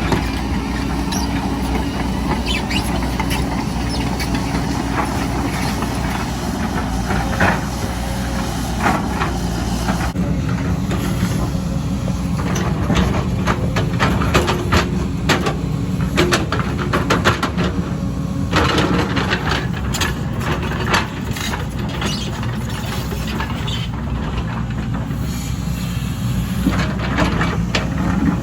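Heavy diesel earthmoving machine running steadily under load, with frequent metallic clanks and squeaks over the engine.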